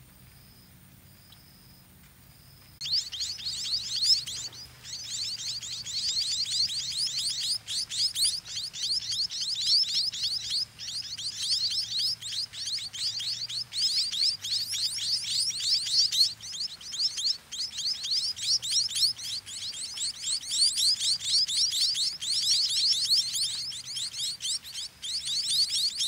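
White-rumped munia chicks begging for food: a dense, rapid chatter of high-pitched, downward-sliding calls that starts about three seconds in and keeps going as a parent feeds them.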